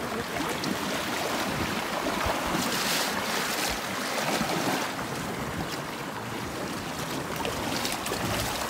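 Shallow river water rushing and splashing around a boat as it is worked over a shoal, with wind on the microphone.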